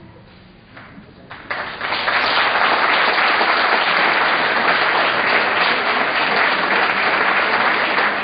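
Audience applauding. It comes in about a second and a half in, swells within half a second to full clapping and then holds steady.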